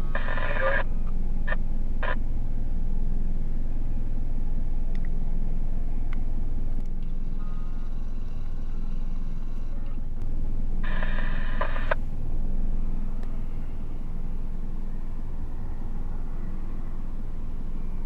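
Heavy fire water tender truck's engine running steadily as it drives by, with a horn blast of about a second at the start, two very short toots soon after, and another horn blast of about a second about eleven seconds in.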